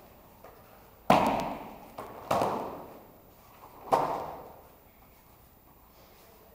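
Three heavy thuds over about three seconds as aikido ukes take breakfalls, bodies and slapping arms hitting the foam mats, each echoing briefly around the hall.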